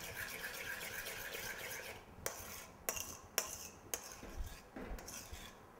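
Thick coconut-cream and yogurt mixture being stirred in a metal bowl: a soft steady scraping for about two seconds, then a handful of light clinks of the utensil against the bowl.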